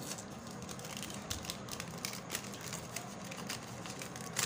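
Paper envelope being torn open by hand: faint crackling and small ticks of paper ripping and crinkling, with a few sharper snaps about a second in, two seconds in and near the end.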